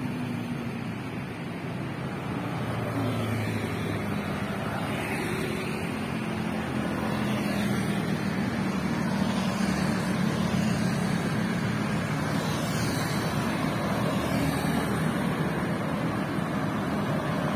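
City road traffic: cars and motorcycles driving along the street, a steady mix of engine hum and tyre noise that grows louder as a stream of vehicles approaches.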